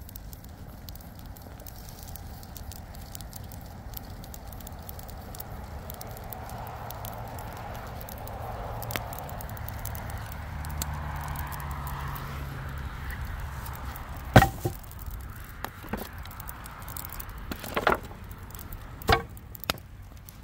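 Cardboard-and-wood scrap fire crackling and popping, with a low rumble swelling and fading through the middle. From about two-thirds of the way in, several loud, sharp wooden knocks, as scrap boards are knocked together while being handled.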